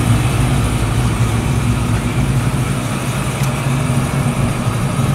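A vehicle engine running steadily at an even pitch, a low hum that neither rises nor falls.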